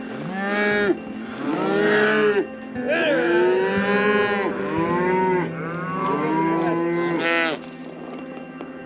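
Cattle mooing: a herd of cows and calves gives several long, overlapping calls one after another, dying away about 7.5 seconds in.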